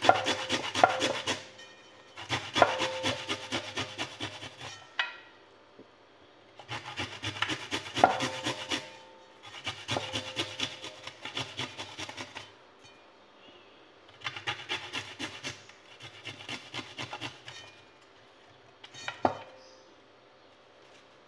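Garlic cloves being grated on a stainless-steel hand grater: bursts of rapid rasping strokes with short pauses between, then a single knock near the end.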